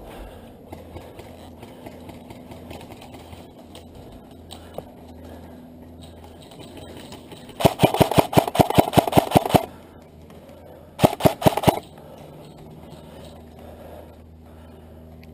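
Airsoft electric rifle firing a rapid burst of about two seconds, then a second short burst of a few shots just over a second later.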